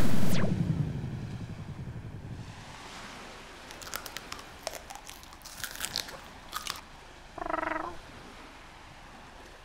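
Crunching and munching sounds for a plush triceratops eating leaves: a handful of sharp, crisp crunches spread over a few seconds. A louder sound fades out at the start, and a short pitched sound comes near the end.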